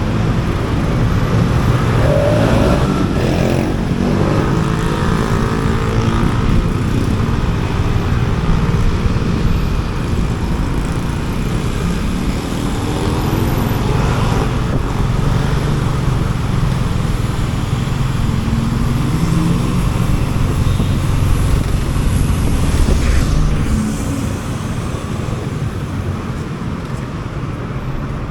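Motorcycle engine running while riding through city traffic, its pitch rising and falling several times as the rider speeds up and slows, over a steady rumble of road and traffic noise.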